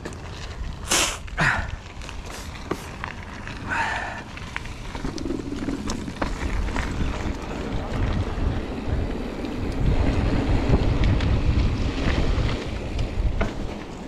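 Wind buffeting the microphone of a camera on a moving mountain bike, with tyre rumble over a dirt track and a few sharp rattles and clicks from the bike, two of them in the first two seconds. The rumble grows louder after about five seconds.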